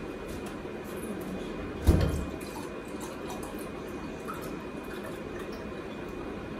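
A single dull thump about two seconds in, over a steady low room hum with a few faint light ticks.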